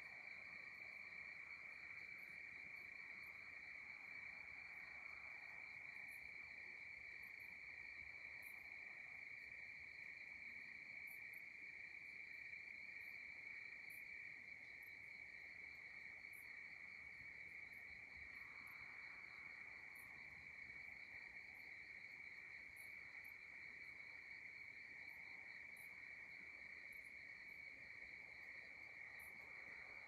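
Faint chorus of night insects, crickets trilling steadily at one high pitch without a break, with scattered very high, brief chirps over it.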